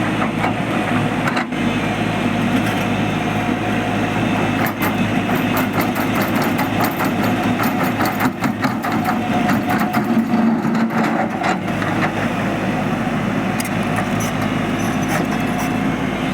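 Excavator engine running steadily, with repeated knocks and scrapes of rock being moved.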